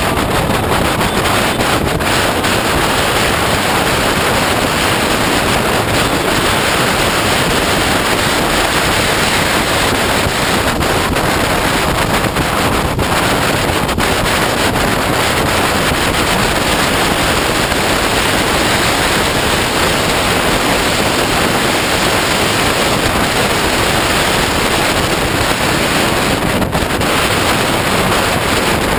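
Steady, loud wind rush on the microphone of a camera mounted on a moving motorcycle, with the motorcycle's running mixed into it.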